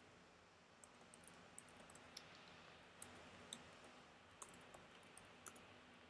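Faint typing on a computer keyboard: a string of about twenty irregular key clicks as a short terminal command is entered.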